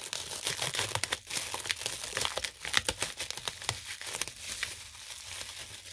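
Bubble wrap and clear plastic film being pulled apart and crinkled by hand, a dense run of crackles that thins out and fades near the end.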